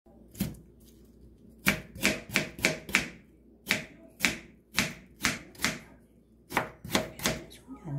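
Kitchen knife cutting potato slices into strips on a plastic cutting board: about fourteen sharp chops, in quick runs with short pauses between.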